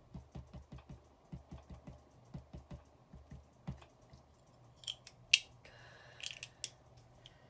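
A small ink pad dabbed repeatedly onto clear rubber stamps on an acrylic block: soft quick taps, about four a second, for the first few seconds. Then a few sharp separate clicks and knocks, the loudest a little past the middle.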